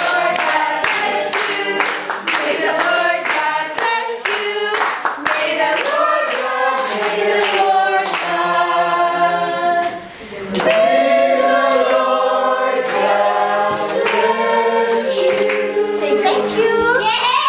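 A group of people singing together and clapping along, with a short break about ten seconds in.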